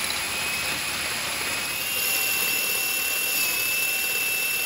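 Bosch SDS rotary hammer drill running a core bit into a masonry wall on rotation only, hammer action off: a steady high whine over the grinding of the bit cutting the masonry.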